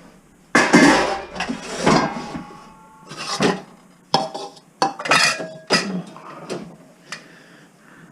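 Metal pots and pans clanking as they are handled and knocked against each other: a string of separate knocks, several leaving a short metallic ring.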